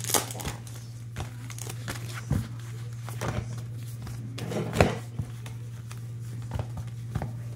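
Foil Pokémon booster-pack wrappers crinkling and tapping on a table as the unopened packs are shuffled around, in short irregular rustles with a couple of sharper knocks. A steady low hum runs underneath.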